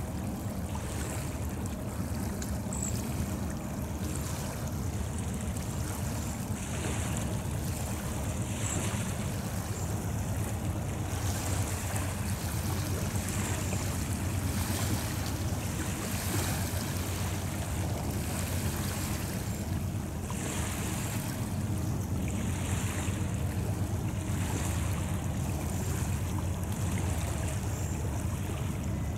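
Steady low rumble of a distant BNSF autorack freight train rolling by, mixed with a hiss of wind that swells and fades.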